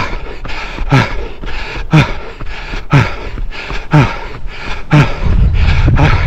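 A runner's heavy breathing: a voiced exhale about once a second, each one falling in pitch. About five seconds in, a low rumble comes in under it.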